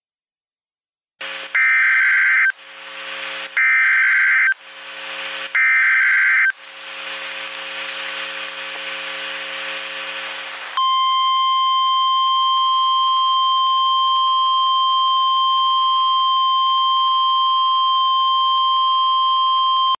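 Emergency Alert System SAME header: three one-second bursts of shrill digital data tones, about two seconds apart, with a hiss between and after them. About eleven seconds in, the steady single-tone EAS attention signal begins.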